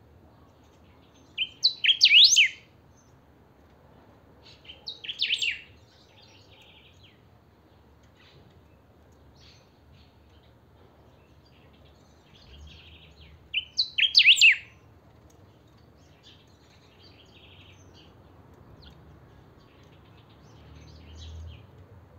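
Caged picahueso, a saltator, singing: three loud short phrases of quick sweeping notes, about two, five and fourteen seconds in, with faint chirps between.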